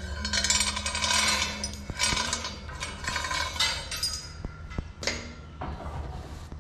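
Steel lifting chain clinking and rattling against itself and the engine block as it is rigged to hoist a Ford 9N tractor engine. A few sharp metal clicks come near the end, over a steady low hum.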